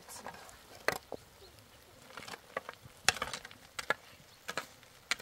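A series of irregular sharp clicks and light knocks, about ten over five seconds, the loudest about three seconds in.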